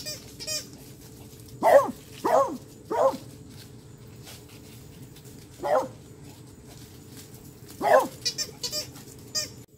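A beagle barking in play: three quick barks about two seconds in, then single barks near six and eight seconds, with high squeaks near the end.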